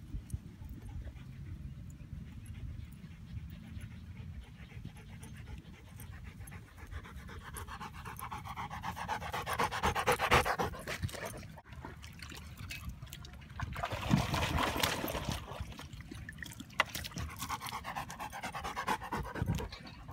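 A black Labrador panting hard right at the microphone, in loud spells about eight, fourteen and eighteen seconds in, fainter between.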